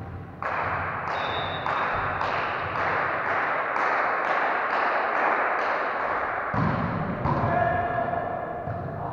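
Rhythmic clapping in unison, about two to three claps a second, each clap echoing in the large sports hall. It stops about seven seconds in, and voices take over.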